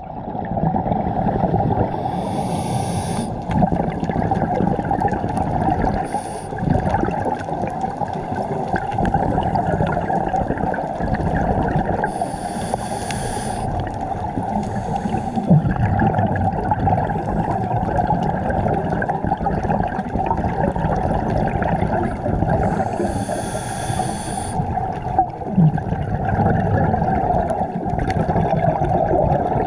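Muffled underwater noise heard through a camera housing. A hissing rush of exhaled scuba bubbles comes about every ten seconds, three times, each lasting about a second.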